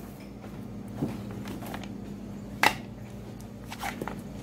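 Steady low hum of room tone, broken by a few short sharp clicks, the loudest about two and a half seconds in.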